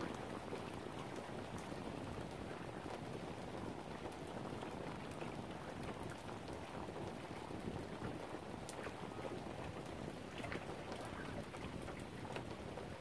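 Steady lakeshore ambience: an even wash of wind and water, with scattered small ticks.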